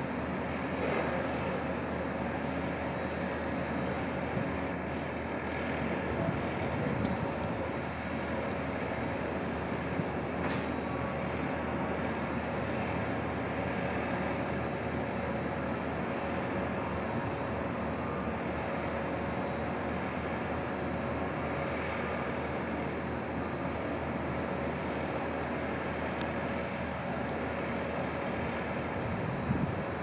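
Steady background rumble with a faint, even hum under it and a few faint ticks.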